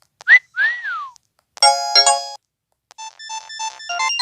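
LG 630 (PD6335) mobile phone playing its built-in electronic sound effects one after another: a quick rising chirp, a whistle that rises and then falls, a two-note chime, then a fast run of short beeping notes.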